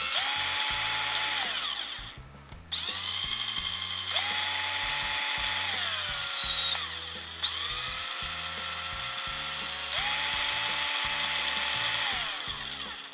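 Black+Decker CD121K50 12-volt cordless drill/driver running unloaded. Its motor whine rises in pitch as the variable-speed trigger is squeezed, holds, then falls as the trigger is eased off, three times over, showing the trigger's speed control.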